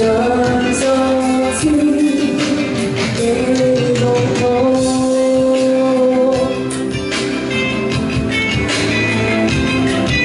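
A woman singing a Cantopop song live into a microphone over loud instrumental accompaniment, her long held notes gliding between pitches.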